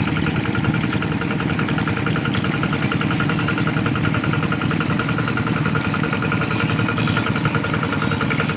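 An engine idling steadily, an even drone that does not change in pitch.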